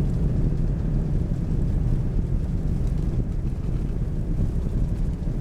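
Car driving along a highway, heard from inside the cabin: a steady low rumble of engine and tyre noise.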